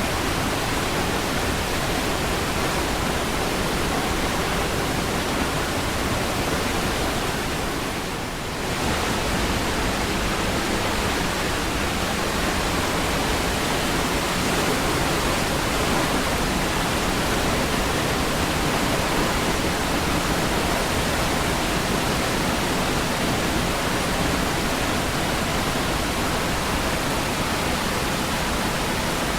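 Niagara Falls: a steady, even rush of falling water, with a brief dip in level about eight seconds in.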